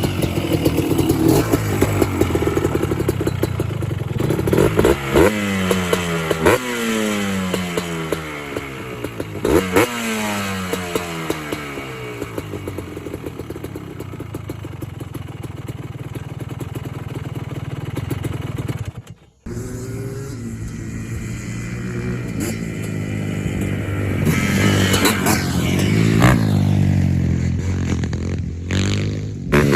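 Yamaha Blaster ATV's single-cylinder two-stroke engine being ridden, revving up and dropping back again and again, each rev falling away in pitch. The sound breaks off briefly about 19 seconds in, then the revving carries on.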